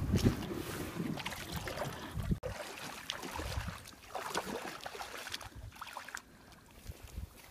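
Shallow water splashing and sloshing around a wading person's legs as a small boat is pushed off the shore, with wind buffeting the microphone. It gets quieter after a cut about two and a half seconds in.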